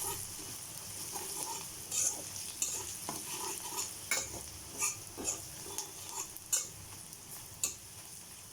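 A spatula stirring ground coriander, cumin and turmeric into onions frying in a pan, scraping the pan in irregular strokes over a steady sizzle.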